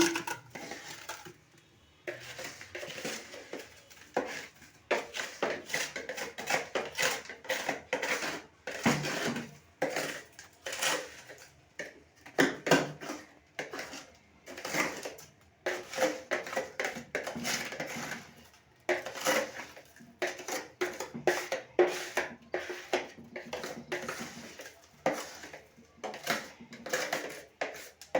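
Ice being scraped and scooped out of a fridge's freezer, with a dense, irregular run of scrapes, clicks and clattering ice pieces.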